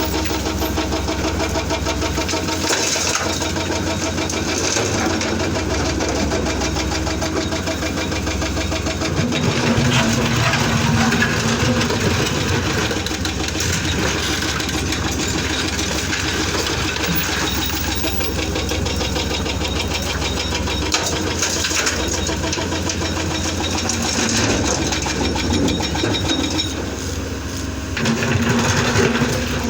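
Excavator's diesel engine running steadily, growing louder with a higher note about ten seconds in and again near the end, as it takes load.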